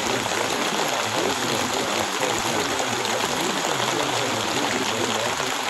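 Steady rain, an even hiss of falling water with no pauses or changes.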